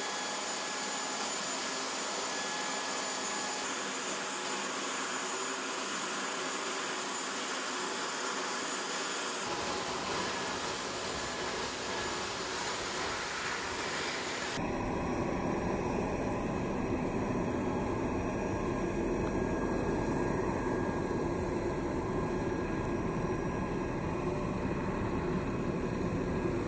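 Steady jet-turbine noise from the Lockheed C-5M Super Galaxy's ground operations: a high whine over a rushing noise at first, changing abruptly about 10 and 15 seconds in to a deeper, fuller rumble.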